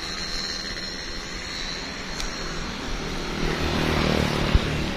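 Road traffic: a motor vehicle passing on the road by the bridge, its engine and tyre noise swelling about three and a half seconds in over a steady background of traffic. A brief thump near the end.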